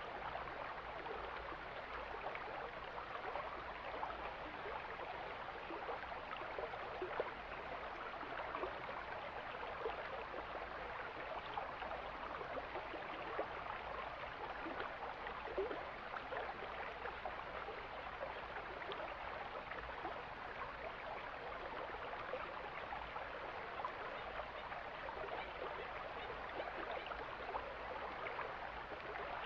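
Mountain stream flowing: a steady, even rush of running water with no breaks.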